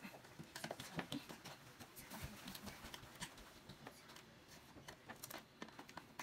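Faint, scattered small clicks and scrapes of a screwdriver prying at the edge of a chair seat, working the old fabric cover off its board.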